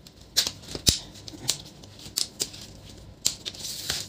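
Plastic front bezel of an Acer laptop display being prised off by hand: a run of sharp plastic clicks and snaps as its clips let go, the loudest about a second in, with a short scrape near the end.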